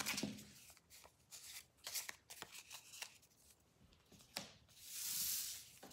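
Small paper cards being handled on a wooden table: a string of light taps and clicks as the stack is squared up and set down, then a soft rustle about a second long near the end.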